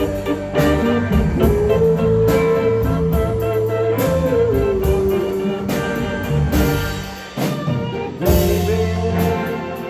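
Live band playing a slow song without vocals: a lead guitar line with held, sliding notes over bass and drums.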